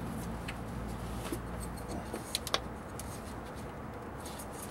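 Two faint, sharp clicks about two and a half seconds in, with a few lighter ticks, as a freeze-plug repair plate is handled into place against the back of the engine block. A low, steady hum runs underneath.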